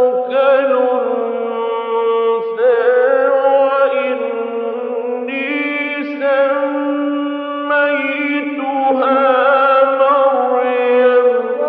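A male Quran reciter chanting solo in the melodic mujawwad style, drawing out long ornamented notes with wavering turns and shifting pitch between phrases.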